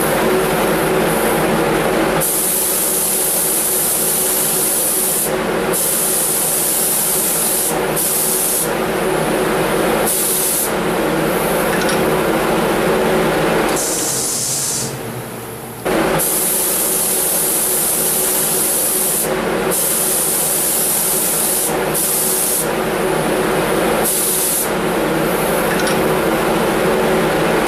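Pneumatic spray gun hissing in repeated bursts of a few seconds each as a top spray finish is sprayed onto a leather shoe, over a steady hum. The sound quietens briefly a little past halfway, then the spraying resumes abruptly.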